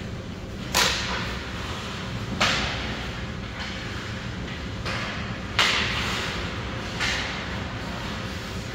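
Sharp knocks from hockey play, four loud ones spread a second or more apart with smaller ones between, each leaving an echoing tail, over a steady low rumble of rink noise.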